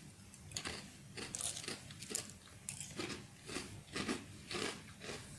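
Someone chewing crunchy chocolate cereal chips: a quick run of crisp crunches, about three a second.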